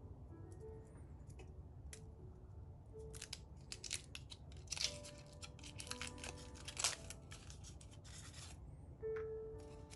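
Foil wrapper of a chocolate crinkling and crackling as it is unwrapped by hand, in quick clusters from about three seconds in until shortly before the end, over soft background music.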